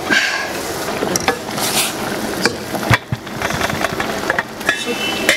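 Stainless steel pot lid knocking and clinking against the pot as it is handled and lifted off, over the steady hiss of soup at the boil. One sharp knock about three seconds in, and a short metallic ring near the end.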